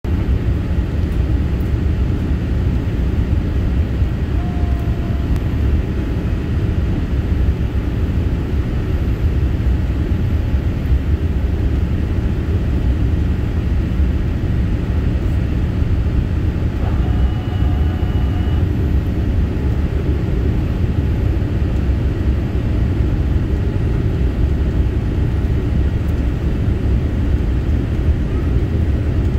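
Steady cabin noise inside a Boeing 787-8 Dreamliner descending on approach to land: a deep, even rumble of the engines and rushing air. A brief faint tone sounds about midway.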